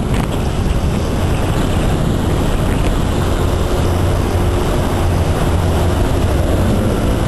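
Riding on a motorcycle: steady wind rush on the microphone with the engine running underneath.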